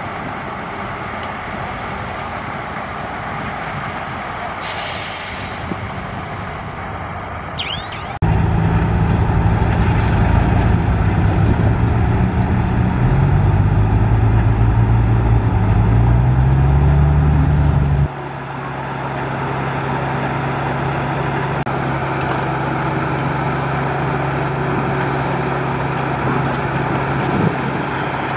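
Heavy dump truck's diesel engine running; about eight seconds in it revs up loud while the hydraulic hoist raises the tipper bed, the pitch climbing, then drops back to a steady run about eighteen seconds in. A short hiss of air about five seconds in.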